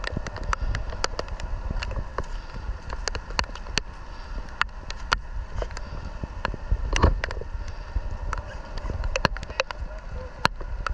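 Irregular sharp taps of raindrops striking the microphone over a steady low rumble of wind noise, with one louder knock about seven seconds in.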